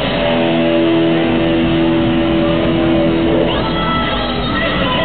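Rock band playing, electric guitar prominent, with notes held for about three seconds before the chords change.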